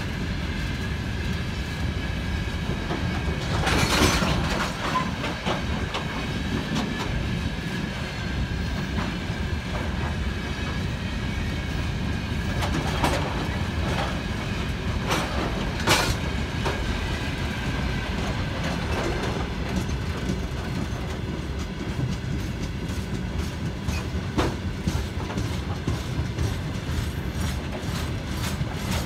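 Railway tank wagons of a freight train rolling past at speed: a steady rumble of wheels with clickety-clack over the rail joints and a faint high whine. A few sharp clanks stand out, the loudest about four seconds in and again about sixteen seconds in.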